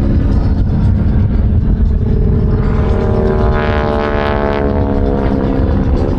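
Radial-engined SNJ-2 propeller aircraft flying past, their drone swelling and shifting in pitch around the middle as they pass, over a heavy low rumble of wind on the microphone.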